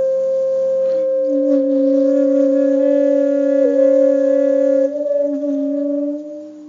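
Ambient background music of long held notes with a wind-instrument-like tone, two notes sounding together, fading down near the end.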